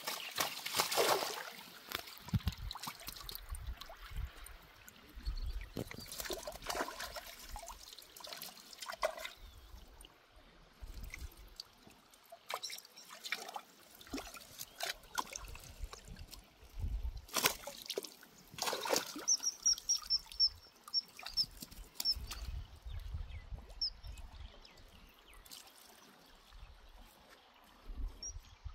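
Lake water splashing and trickling in irregular bursts. A bird gives a quick run of short high chirps about twenty seconds in.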